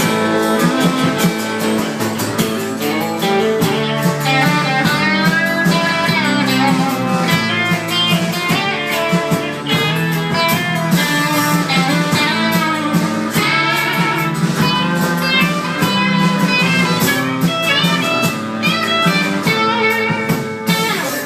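Instrumental break of a live blues song: a guitar lead line with bent, wavering notes over a steady chordal backing, with no singing.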